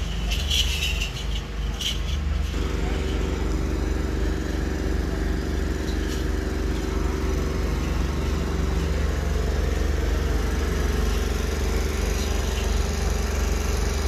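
An engine running steadily, a constant low hum with a higher tone that joins about two and a half seconds in.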